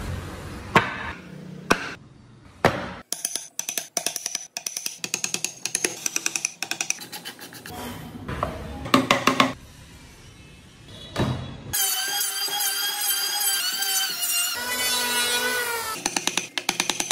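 Woodworking tool sounds on wood: runs of quick taps and clicks, then about twelve seconds in a small power tool whining steadily for a few seconds, followed by more rapid clicking.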